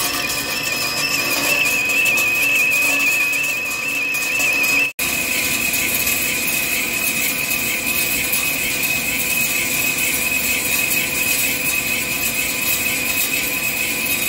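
Heavy CNC lathe taking a deep roughing cut in a steel spindle with a carbide insert, running with a steady high-pitched whine that wavers slightly. The sound drops out for an instant about five seconds in.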